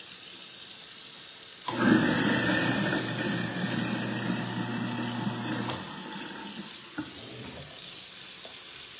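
Kitchen faucet running into a stainless steel sink. From about two seconds in, a louder, lower rush with a steady low hum lasts about four seconds, then the plain running water returns.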